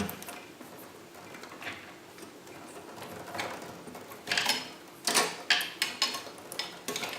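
Hands handling a cable and connector inside a PC case: scattered small clicks and rustles, busiest in the second half, as the front panel audio lead is reconnected to the sound card.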